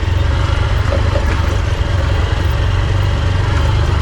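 Honda XR150's single-cylinder four-stroke engine running steadily at low revs in first gear on a slow, steep dirt descent.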